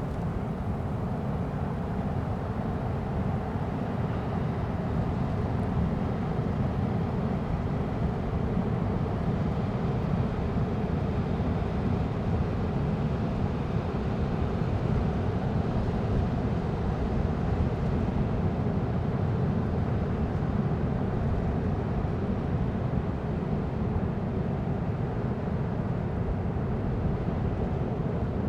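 Steady low rumbling wash of ocean surf, even throughout without distinct breaking waves or crackling pops standing out.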